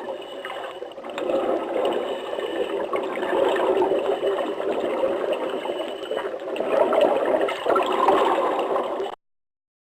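Water running and gurgling, like a small stream or trickle, with an uneven, bubbling flow; it cuts off suddenly about nine seconds in.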